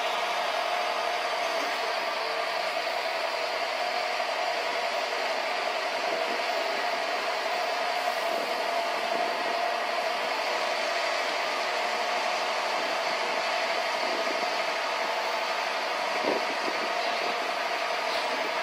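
Mobile crane's engine and hydraulics running steadily with a constant whine while it swings its load down. There is a short knock near the end.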